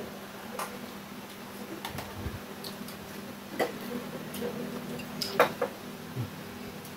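Chopsticks and a spoon clicking and tapping against rice bowls as the family eats: scattered light clicks, the sharpest about five seconds in, over a steady low hum.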